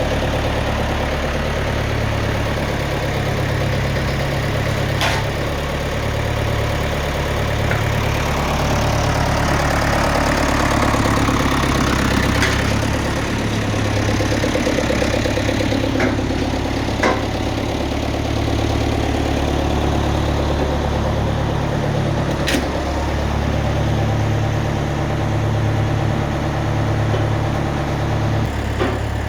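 Massey Ferguson 35 tractor's four-cylinder engine idling steadily, with a few sharp clicks over it.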